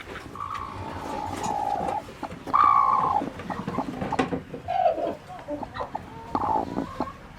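Chickens clucking, with several drawn-out calls, the loudest about two and a half seconds in.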